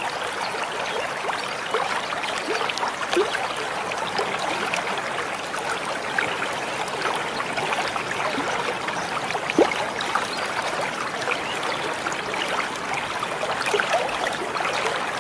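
Shallow running water trickling and burbling steadily, with many small bubbling notes.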